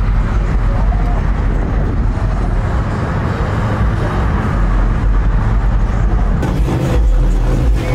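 Car engine idling with a deep, steady rumble. About six and a half seconds in, more hiss joins it.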